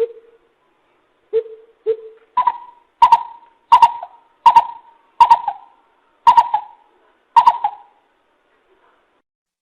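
Coucal (bìm bịp) giving a series of deep hooting notes. Three lower hoots come first, then seven higher hoots about 0.7 s apart, each ending in a short fading tail.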